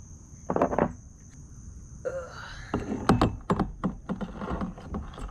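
A run of irregular knocks and clicks, one short burst under a second in and a dense cluster in the last three seconds, over a steady high-pitched hum.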